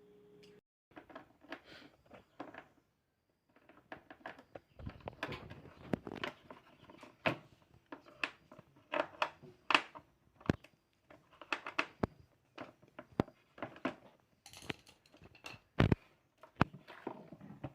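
A steady hum cuts off abruptly about half a second in. Then comes an irregular run of clicks, taps and knocks as parts of a household electric fan are handled, with now and then a louder knock.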